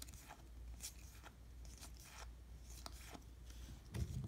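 Topps baseball cards being slid one at a time off a stack held in the hand: faint, irregular swishes and flicks of card stock rubbing together. A soft low thump near the end.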